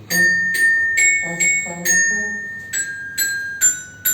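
Tuned bells struck one note at a time, about two notes a second, each note ringing on. The short melody steps up, comes back down, then walks down the scale.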